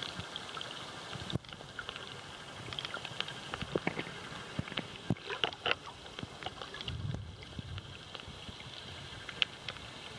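Underwater ambience picked up by a submerged camera: a steady hiss with scattered, irregular clicks and crackles, and a brief low muffled rumble about seven seconds in.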